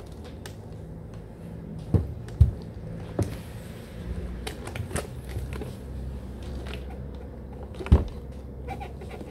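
An electric skateboard with 107mm urethane wheels creaking and knocking on its trucks as the rider rocks it hard from edge to edge on a wooden floor, testing for wheelbite. There are a few sharp knocks, the loudest near the end, over a low steady hum.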